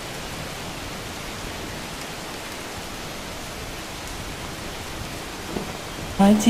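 Steady hiss of light rain falling, with no single drops standing out. Music starts loudly just before the end.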